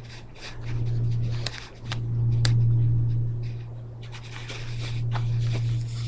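Rustling and scraping from a phone being carried and handled, with a few sharp clicks and a low hum that swells and fades.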